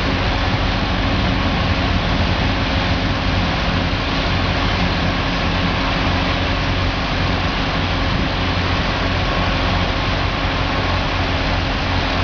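An engine running steadily, with a constant loud hiss over it and no pauses.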